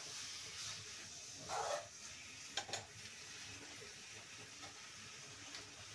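Faint, steady sizzling of greens and masala frying in a kadhai, as handfuls of poi saag (Malabar spinach) leaves are dropped onto prawns and taro frying in mustard oil. A brief louder rush about one and a half seconds in, and two light clicks a little after.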